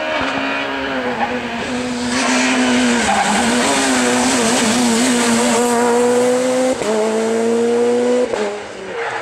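Peugeot 207 rally car engine running hard at high revs as the car drives up and passes, getting louder from about two seconds in. The note breaks briefly at a gear change about two-thirds through, then drops sharply near the end as the driver lifts off.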